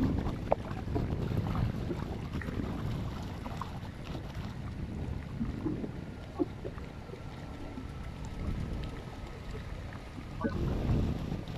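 Wind buffeting the microphone, a low rumble that swells in gusts, with scattered small clicks and taps over it.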